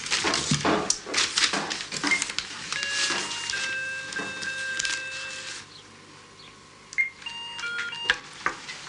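Paper sheets rustling and crackling as they are flung and shuffled for the first couple of seconds. Then several high steady tones hold for a few seconds, and near the end comes a quick run of short beeps.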